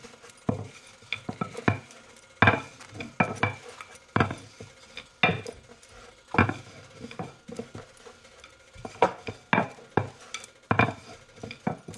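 Hands patting and pressing naan dough out on a floured wooden board: irregular light taps and knocks, roughly one a second.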